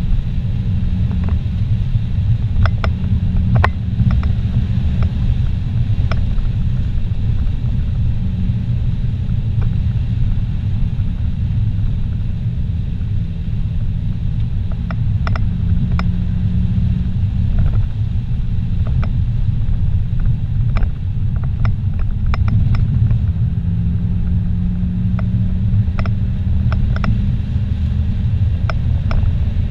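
Steady low rumble of a car's engine and tyres on a paved road, heard from inside the cabin while driving, with a few small clicks now and then.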